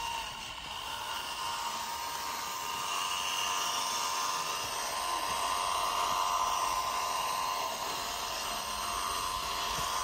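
Small motor and gearbox of a handmade miniature Massey Ferguson 385 model tractor whining steadily as it pulls a tined cultivator through sand.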